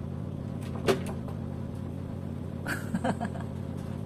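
Electric hair clipper buzzing steadily, with a sharp click about a second in and a few brief handling noises near the end.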